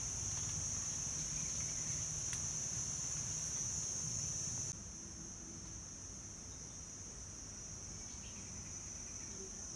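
Insects chirring in a steady, unbroken high-pitched drone over a low rumble; the level drops suddenly a little under five seconds in.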